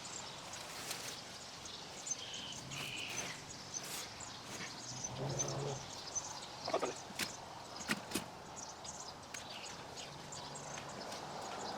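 Quiet outdoor background with faint high chirps and scattered light clicks and knocks, the sharpest pair about seven to eight seconds in.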